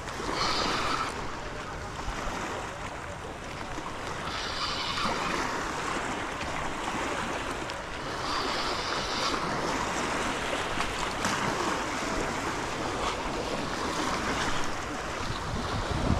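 Waves washing on the shore, with wind on the microphone; a brighter hiss swells three times, about four seconds apart.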